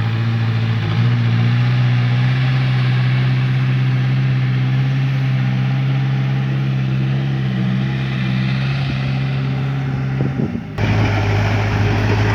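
Backhoe's diesel engine running steadily under load, its pitch stepping up slightly about a second in. The sound breaks off abruptly near the end and the engine picks up again.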